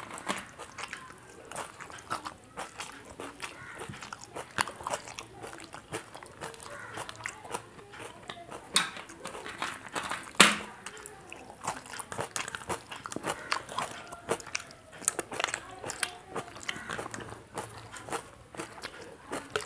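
Close-up eating sounds of grilled chicken being bitten and chewed: an irregular run of short crunches, clicks and wet mouth sounds, with two louder sharp clicks near the middle.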